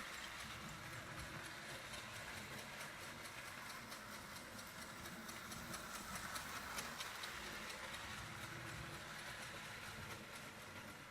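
Marx 027 toy steam locomotive running on its track, its chug-chug sound unit making a rhythmic chugging over the steady whir and clatter of motor and wheels.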